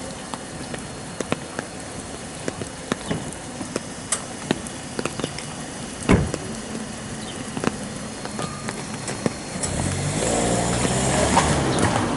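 Steady rain falling, with many heavy drops ticking sharply close by and one dull thump about six seconds in. From about ten seconds in a louder low rumble rises under the rain.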